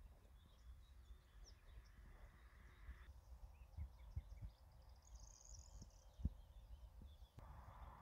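Near silence: faint outdoor ambience of wind buffeting the microphone with low bumps, and distant birds chirping, with a short patch of higher chirping about five seconds in and one sharper thump just after six seconds.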